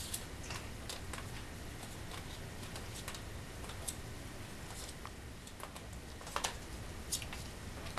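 Irregular light clicks and taps of a puppy's claws and a small plastic Kinder egg capsule on a tile floor as the puppy plays, with a sharper couple of taps about two-thirds through, over a low steady hum.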